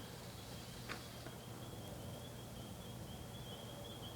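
Faint outdoor night ambience: a steady low hum, a thin, slightly wavering high-pitched trill, and one faint click about a second in.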